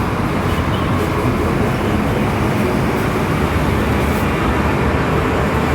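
Steady mechanical rumble from running workshop machinery, with a low hum underneath.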